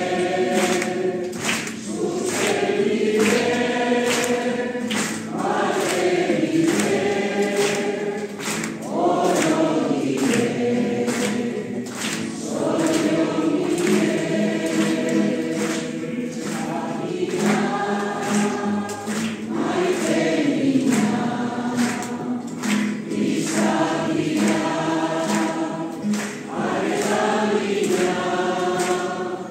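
A congregation of men and women singing a song together in Basque, with a steady beat of sharp strokes running under the singing.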